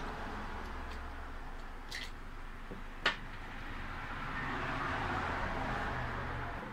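Fuel pump module parts handled on a glass-topped counter: a few light plastic clicks, then one sharp knock about three seconds in as the electric fuel pump motor is set down on the glass, over steady workshop background noise.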